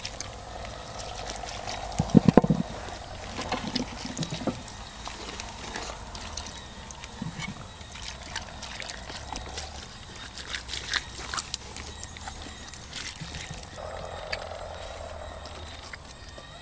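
Water trickling and sloshing, with scattered clicks and knocks of handling; a short loud low sound about two seconds in.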